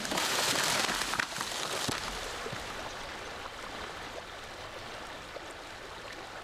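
Steady rushing of flowing water, as of a river, louder for the first two seconds, with a few faint clicks.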